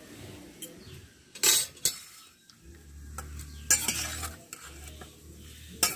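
Raw pabda fish pieces being mixed by hand with turmeric and salt in a dish, with a few sharp clinks and knocks against the dish.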